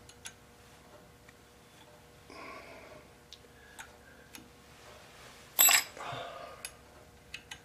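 Light metallic clicks and ticks as clock-gong wire is run through and wound into a coil on a lathe, with one sharp metallic clink with a short high ring a little past halfway.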